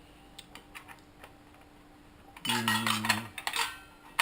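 Metal clinking and scraping as a blade wrench is fitted to a circular saw's arbor bolt and worked to undo it: a few light clicks, a louder run of clinks about two and a half seconds in, and a sharp click at the end.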